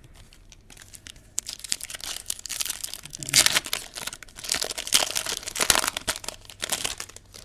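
A trading-card pack wrapper being torn open and crumpled: a run of crinkling and crackling that starts about a second and a half in and is loudest around the middle.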